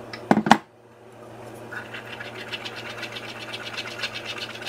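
A few sharp knocks as the blender jar is emptied into a wire strainer, then a wooden spoon scraping quickly and evenly round a fine-mesh wire strainer, pushing thick chile sauce through the mesh.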